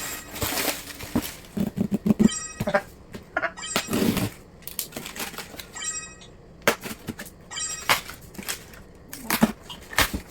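Irregular clatter of knocks and clicks with a few short squeaks, as the packaging and parts of a new air fryer are handled and unpacked.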